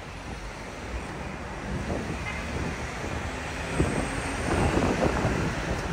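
Traffic noise from road vehicles mixed with wind buffeting the microphone, getting louder about four seconds in.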